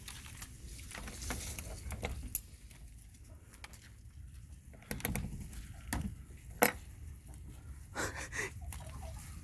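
Scattered clicks and knocks over a low rumble, the sharpest click about two-thirds of the way through.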